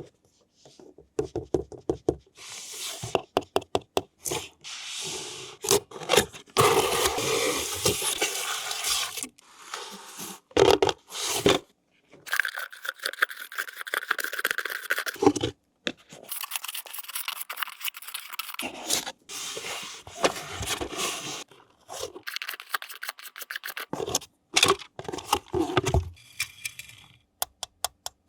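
Toy packaging being handled and opened: plastic and cardboard scraping, rustling and tearing, with many sharp clicks and knocks. The sounds come in short bursts that stop abruptly.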